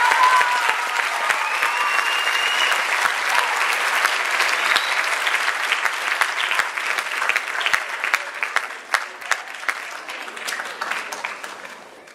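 Theatre audience applauding, with a few shouts of cheering near the start. The clapping thins to scattered claps and fades out at the end.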